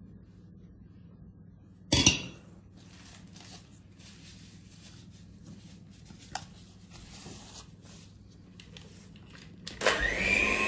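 A sharp knock about two seconds in, then faint scattered clicks and scrapes around a mixing bowl. Near the end an electric hand mixer switches on in the cake batter, its motor whine rising quickly and then holding steady.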